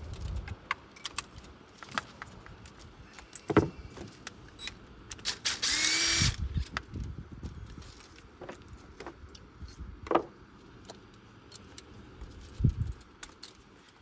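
Metal hand tools clicking and clinking against engine parts, with a few heavier knocks and one brief, loud burst of noise about six seconds in.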